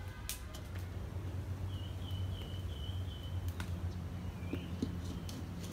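A bird calls four quick chirps about two seconds in and one more near the end, over a steady low rumble, with a few light clicks and knocks as a metal cooking pan is handled and set on the stove.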